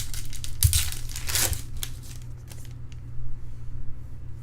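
A trading-card pack wrapper being torn open and crinkled, a loud rip-and-rustle about a second in, followed by smaller crinkles and ticks as the cards are handled.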